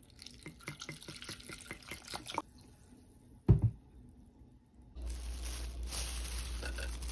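Soy sauce glugging out of a large bottle into a bowl of chopped onions, a quick run of gurgles for about two and a half seconds. A single heavy thump comes about three and a half seconds in, the loudest sound. From about five seconds a steady hiss with a low hum takes over.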